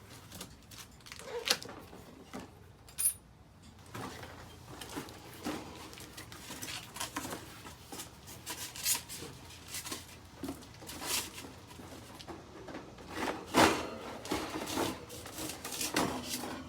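Packaging and parts of a boxed bird bed being handled during unpacking: irregular clicks, knocks and rustling, with a sharper knock about a second and a half in and another near the end.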